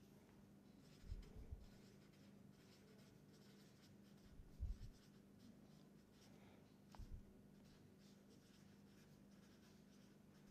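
Faint scratching of a felt-tip marker writing on paper, with three soft low thumps, about a second in, midway and about seven seconds in, over a steady faint hum.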